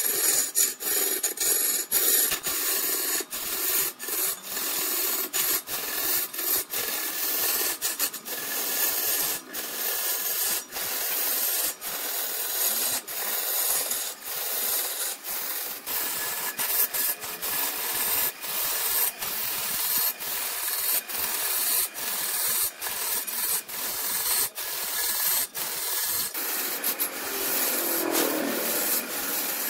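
A cutting tool or abrasive scraping against red incense wood spinning on a wood lathe, making a steady rough hiss broken by frequent irregular clicks. Near the end a lower tone falls in pitch.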